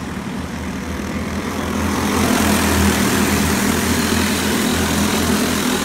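A pack of racing karts running together, their small engines droning. The sound swells about two seconds in as the field comes by close.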